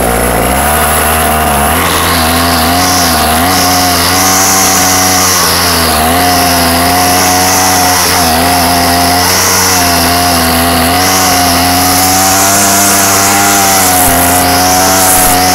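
Murray 2500 two-stroke string trimmer running at high speed. Its engine pitch dips briefly and climbs back every second or two as the throttle is eased and opened again.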